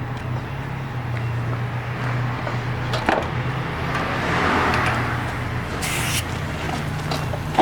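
A vehicle engine running steadily at idle, with a short hiss about six seconds in.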